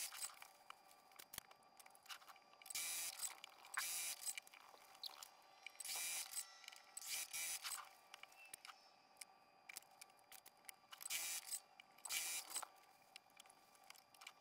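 Faint, irregular rustling and scraping of quilt fabric pieces being handled, trimmed and pressed on a work table, in short bursts of under a second each, over a faint steady hum.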